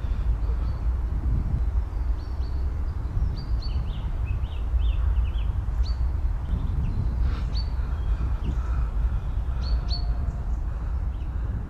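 Wind buffeting the microphone in a continuous low rumble, with small birds giving short high chirps, in clusters about three to five seconds in and again around ten seconds in.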